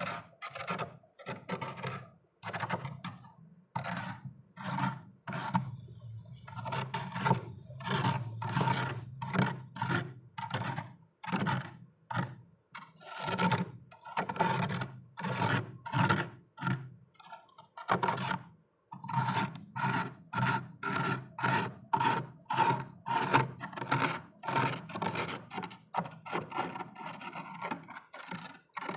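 Knife scraping thick frost build-up inside a freezer: a long run of short rasping strokes, roughly one or two a second.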